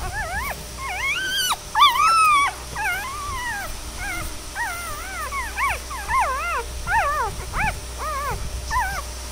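Newborn Labrador retriever × German Shepherd puppies crying, many short high-pitched squeaks and whines that rise and fall. The calls come one to two a second, some overlapping, with a louder, longer cry about two seconds in.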